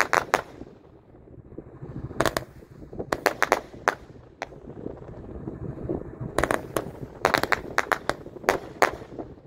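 Winda Pulse Pounder, a 200-gram 50-shot report cake, firing: shots go up and burst in sharp bangs. The bangs come in clusters of several quick reports, a second or two apart.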